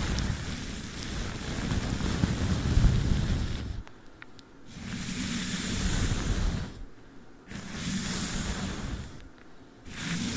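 Long swishing strokes of a brush over sticky tape close to the microphone, about four of them, each lasting two to three seconds with a short pause in between.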